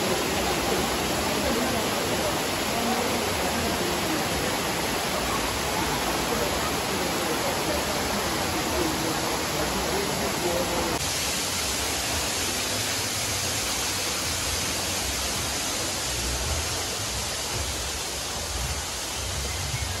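Steady rushing of a waterfall, water pouring onto rock. About halfway through, the sound shifts to a brighter hiss with some low rumbling underneath.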